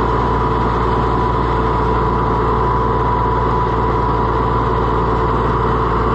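Allis-Chalmers 200 tractor engine running steadily at idle with a steady high whine over it, while the hydraulics are cycled to check newly installed hoses for leaks.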